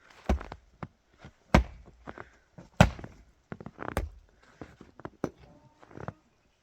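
A series of heavy blows, the four strongest landing about every second and a quarter, with lighter knocks in between.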